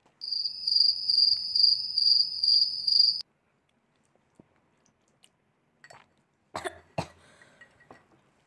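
Cricket-chirping sound effect, a high trill pulsing about twice a second, lasting about three seconds and cutting off abruptly. After a pause, a brief cough comes about six and a half seconds in, with a sharp click just after.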